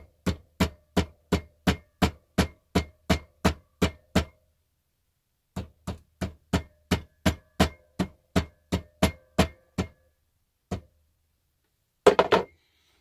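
Small hammer tapping lightly and evenly, about three taps a second, with a faint metallic ring, driving a press-fit metal bushing onto a driveshaft part clamped in a bench vise. The tapping stops for about a second and a half partway through, then resumes. A short clatter comes near the end.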